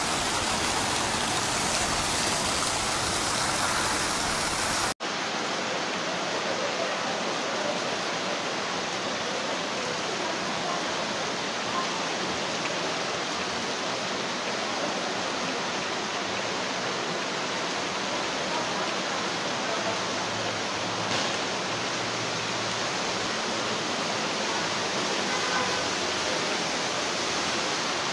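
Heavy rain pouring onto a flooded street, with water running over the pavement as a steady hiss. It drops out for an instant about five seconds in and then resumes, slightly duller.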